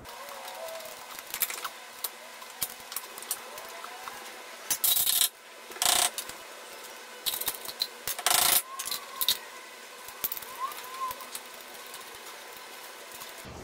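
Hand wire brush scrubbing the face of a car's front wheel hub in a few short, loud strokes, with light metallic clicks and taps of tools on the suspension parts in between.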